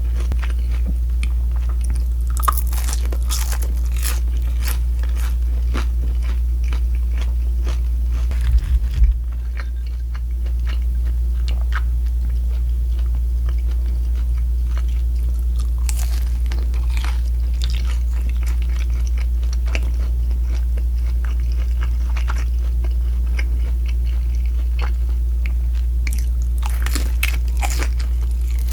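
Close-miked biting and chewing of crispy deep-fried pork, with many short crunches throughout, over a steady low hum. A few dull thumps about nine seconds in.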